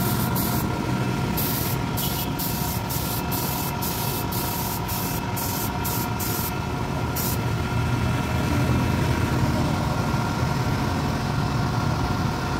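Compressed-air spray gun hissing in quick on-off bursts, stopping about seven seconds in, over the steady hum of an air compressor running.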